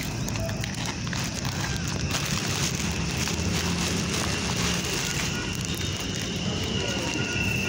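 Dry rice grains poured from a plastic bag, pattering and crackling on concrete as a steady hiss of small ticks.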